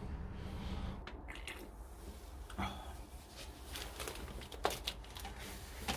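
Light rustling and a few short clicks and knocks from plastic packaging and kit being handled, over a low steady hum.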